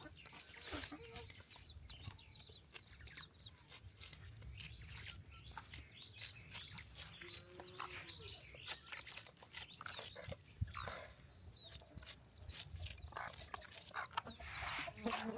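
Chickens clucking in a farmyard, with a steady scatter of short, high chirps throughout.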